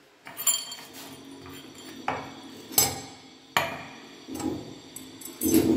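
Chrome toothbrush-holder fittings and tools knocking and clinking against a ceramic basin counter and tiles as they are handled: about five sharp knocks, some with a brief metallic ring.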